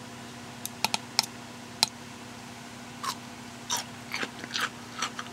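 Crisp bites into homemade garlic dill fridge pickles, then chewing: several sharp crunches in the first two seconds, followed by softer, wetter chewing crunches.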